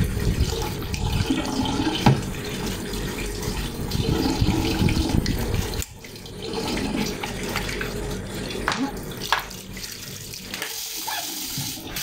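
Water running and splashing steadily, with a few light knocks of plastic as the washing machine's drain valve parts are handled.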